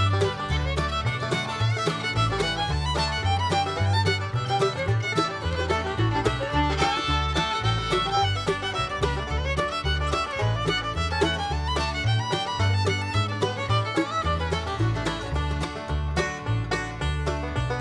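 Bluegrass-style background music with fiddle and banjo over a steady bass beat.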